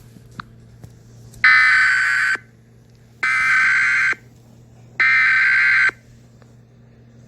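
Emergency Alert System SAME header: three bursts of digital data tones, each just under a second long with about a second between them. This is the coded header that opens an alert and can set off a SAME weather radio.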